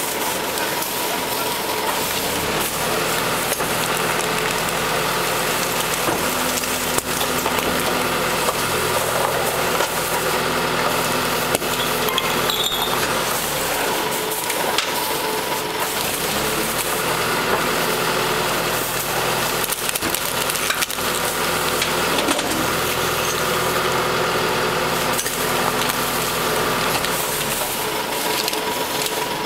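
Small rear-loading garbage compactor truck running steadily, its engine and hydraulics humming, while plastic garbage bags are tossed into the rear hopper, landing with occasional knocks.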